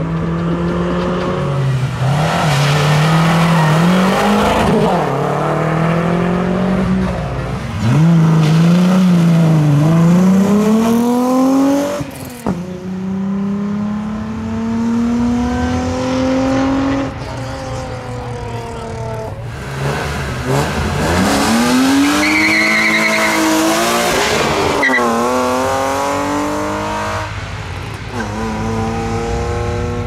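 Modified hillclimb race cars, several in turn, accelerating hard up a winding road, their engine revs climbing and dropping through gear changes and lifts for the bends.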